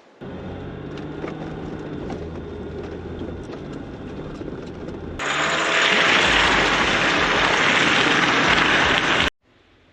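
A vehicle engine running steadily with a low drone. About five seconds in, a much louder rushing hiss swamps it, then both cut off abruptly near the end.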